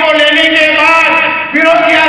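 A song played loud through an auditorium's sound system: a voice singing long held, gliding notes, with a short break about one and a half seconds in.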